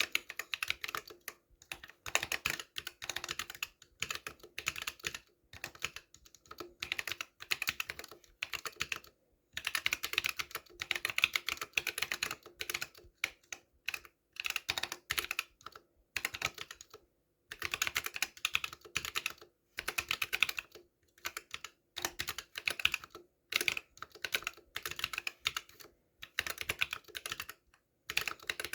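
Drop + OLKB Planck V6 mechanical keyboard with Akko Lavender Purple switches being typed on: fast runs of key clacks lasting a few seconds each, broken by short pauses. The space bar is a Gateron Blue with its click silenced by gluing and lubing the stem.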